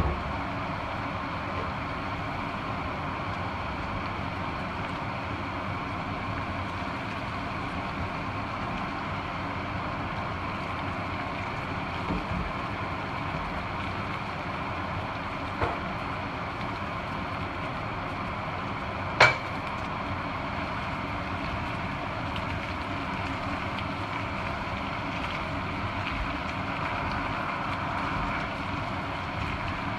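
Steady hiss of a frying pan of cream sauce cooking on a gas hob. A few sharp knocks break it, the loudest about two-thirds of the way through.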